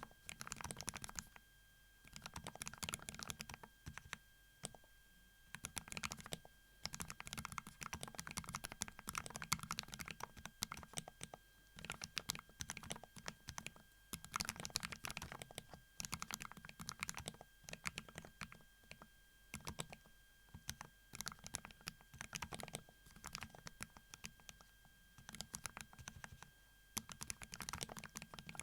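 Typing on a Kapowaz x Keyreative KAP mechanical keyboard with MZ YEZHOU Y3 linear switches: rapid runs of keystrokes lasting a second or two, separated by short pauses.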